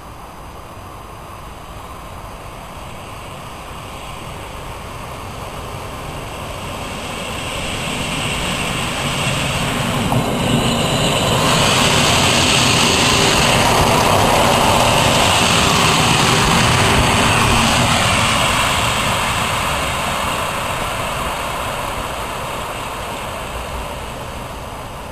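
A Fiat diesel railcar approaching and passing close by. Its engine and wheels on the rails build to a peak as it goes past, then fade as it runs on.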